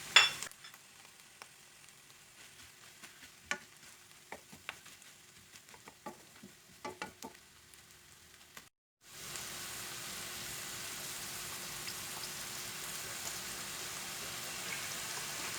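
Shrimp and calamari frying with vegetables in a pan. At first the utensil gives scattered clicks and scrapes as it stirs over a faint sizzle. After a short break about nine seconds in, there is a steady, even sizzle.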